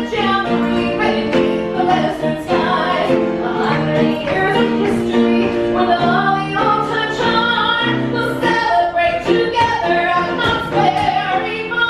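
Music with singing, loud and steady throughout.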